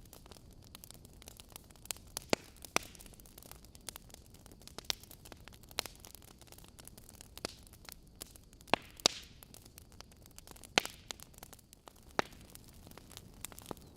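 Wood fire burning in a fireplace, crackling: irregular sharp pops and snaps over a faint steady hiss, with the loudest pops about two seconds in, twice close together near the middle, and once more toward the end.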